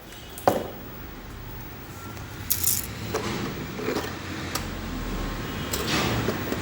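Clicks and clattering knocks of a plastic toy bus and its box being handled, a handful of separate knocks over a faint low hum.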